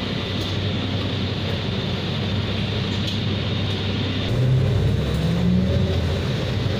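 Inside a city bus while it drives slowly in traffic: steady engine hum and road noise, getting louder with a rising engine note about four seconds in.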